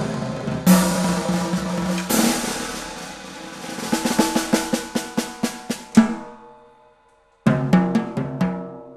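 Drum kit played solo: cymbal crashes ringing over the kit in the first couple of seconds, then a fast run of snare and tom strokes building to a hard accent about six seconds in. The kit rings out to a short pause, then fast strokes start again near the end.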